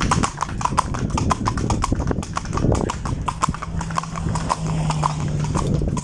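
A horse's hooves clip-clopping quickly on a paved road at a brisk pace, a rapid even run of sharp knocks, several to the second.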